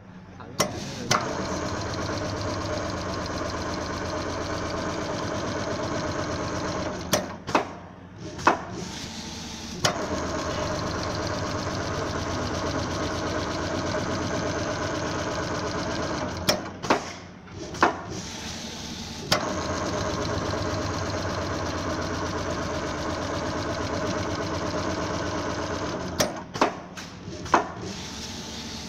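Computer-controlled automatic sewing machine stitching quilting seams through a leather jacket panel and its padding: a steady, fast needle rhythm in long runs, stopping twice and again near the end, with a few sharp clicks in each stop.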